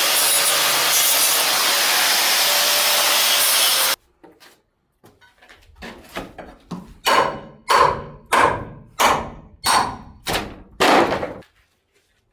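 Tool work on wooden concrete formwork. A steady loud rushing noise cuts off abruptly about four seconds in. About two seconds later comes a run of about eight evenly spaced strokes on wood, roughly one and a half a second, each sharp at the start and then fading.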